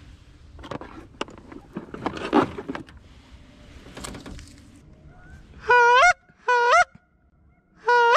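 Goose call blown close by: three loud honks in the last few seconds, each breaking sharply upward from a low note to a higher one, calling to Canada geese. Before them, rustling and a few light knocks of gear being handled.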